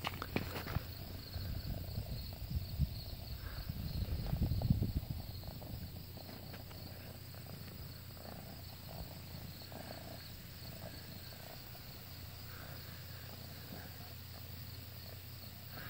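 Domestic cat purring steadily while being stroked, with rustling and a few bumps of the hand against its fur in the first five seconds.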